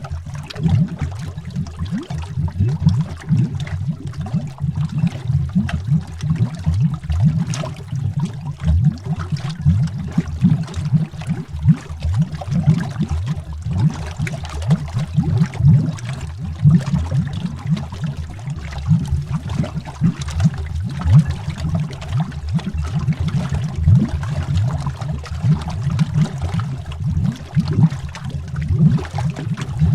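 Continuous underwater bubbling: a dense, unbroken stream of bubbles popping quickly and irregularly, deep in pitch.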